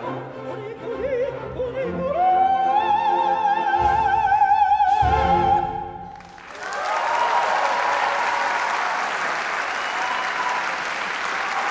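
Operatic soprano singing with orchestra, climbing to a long high note with wide vibrato that she holds for about three seconds. Just after the music stops, about six and a half seconds in, the audience starts applauding loudly and steadily.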